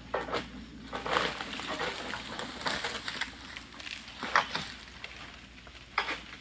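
Long-pole harvesting sickle cutting at an oil palm frond in the crown: several sharp rasping strokes, with the stiff fronds rustling between them.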